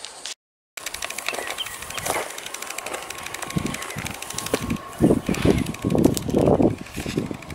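Footsteps crunching and brushing through dry grass and scrub on a hillside trail, with irregular crackling. The steps get heavier from about three and a half seconds in.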